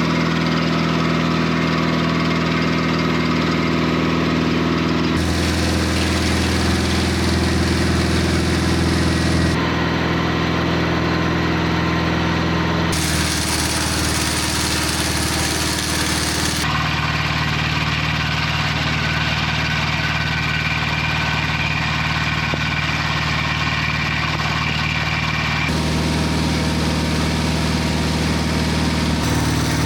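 Engine of a portable circle sawmill running steadily while the mill saws a poplar log. The sound changes abruptly several times, a few seconds apart.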